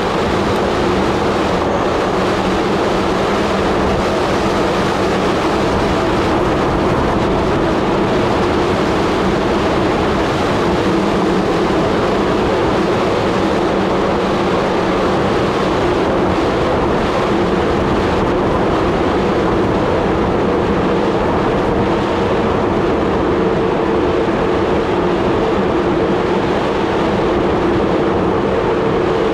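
Merida bicycle coasting fast down an asphalt road: a steady rush of wind on the microphone mixed with road and tyre noise, unbroken throughout.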